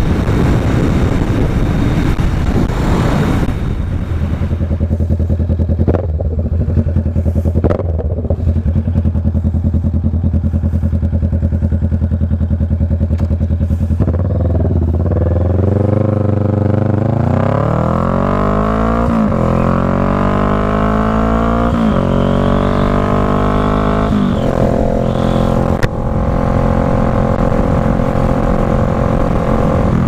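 Kawasaki Vulcan S 650 parallel-twin motorcycle engine and exhaust: wind rush at highway speed at first, then a steady idle, then pulling away and accelerating through several gear shifts with the engine note rising and dropping back at each shift, settling into a steady cruise near the end.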